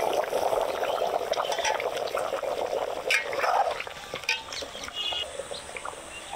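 Duck curry bubbling at a hard boil in an open metal pot over a wood fire, with a metal ladle stirring it and clinking against the pot a few times. The bubbling is louder for the first few seconds and then quietens.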